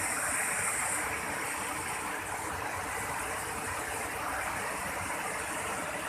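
Water rushing steadily over rock cascades of a small waterfall, an even hiss with a brighter high edge in the first second.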